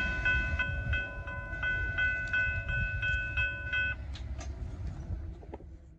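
Level crossing bell ringing steadily at about three strokes a second over the fading rumble of a departing suburban electric train. The bell stops about four seconds in, and a few faint clicks follow.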